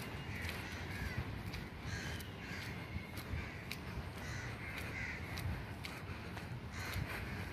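LHB passenger coaches rolling past with a low rumble and scattered clicks from the wheels on the track, while crows caw repeatedly about once a second.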